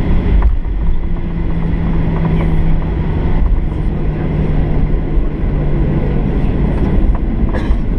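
Cabin noise of a Boeing 737-800 jet airliner: a loud, steady rumble from its CFM56 turbofan engines and the airframe, with a low engine hum that steps slightly lower in pitch and a few small rattles and clicks from the cabin.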